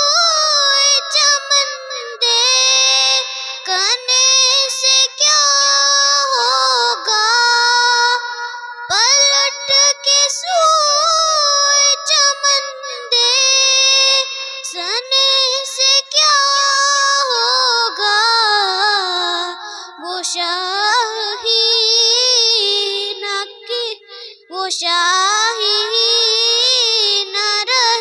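A young girl singing a naat unaccompanied, her high voice holding long, ornamented notes that waver and glide in pitch, broken only by short breaths.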